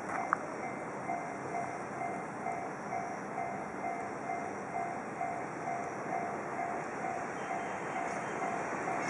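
Japanese railway level crossing alarm ringing, an electronic ding repeating about twice a second, over a steady rushing noise of the railway.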